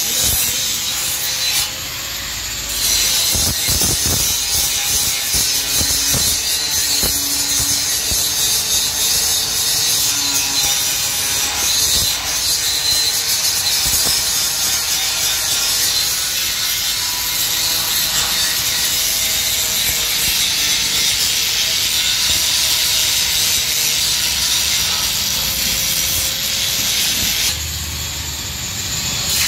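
Angle grinder grinding steel bars of a gate, a loud, steady high-pitched hiss. It eases off briefly about two seconds in and again near the end.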